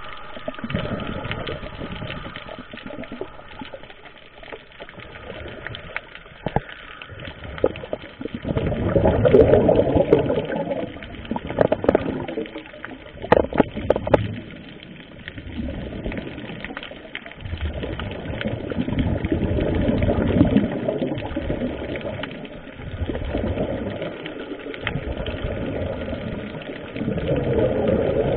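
Scuba regulator exhaust bubbles gurgling and rushing underwater in repeated surges a few seconds long as the divers breathe out, with a few sharp clicks about halfway through.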